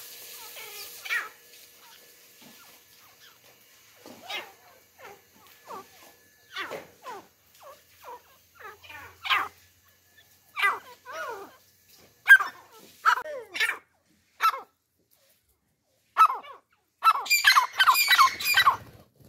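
Francolins (teetar) calling: short, squeaky, sweeping calls at irregular intervals, crowding into a quick run of calls near the end.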